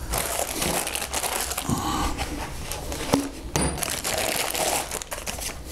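Clear plastic bag crinkling and rustling as a leaf blower nozzle tube is unwrapped by hand, with a couple of sharp clicks midway.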